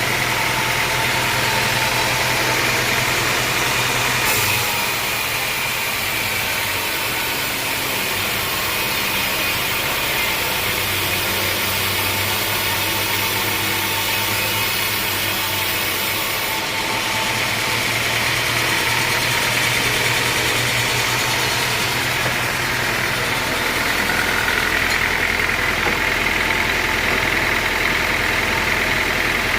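Engine of a homemade sawmill running steadily. A high hiss over it starts abruptly about four seconds in and stops about sixteen seconds in.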